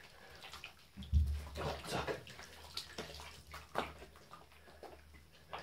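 Hands scrubbing a wet cat's hind legs in a bathtub, with a string of small, irregular splashes and wet rubbing in shallow water.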